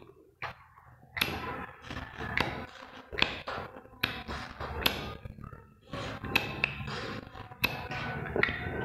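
Brake/clutch master cylinder being pumped by hand with a metal rod pushed into its piston bore, giving sharp taps and clicks roughly once a second over a low rough rustle.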